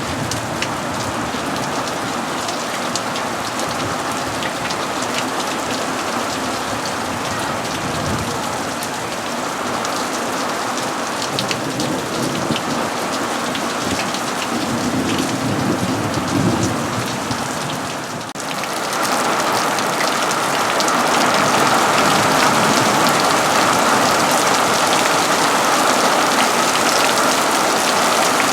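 Steady rain falling and pattering on surfaces, with a low rumble of thunder about halfway through. About two-thirds in, the sound dips briefly, then the rain comes back louder and fuller.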